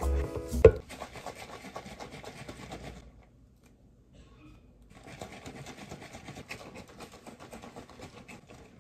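Milk being shaken hard in a plastic shaker cup: a fast, continuous rattle and slosh in two stretches with a pause of about two seconds between them. A single sharp knock near the start is the loudest sound.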